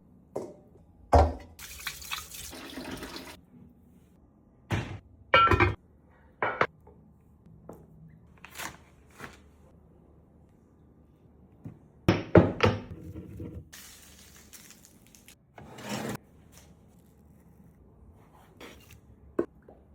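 Kitchen food-preparation sounds: a dozen or so scattered knocks and short clatters, with two brief spells of water running from a tap.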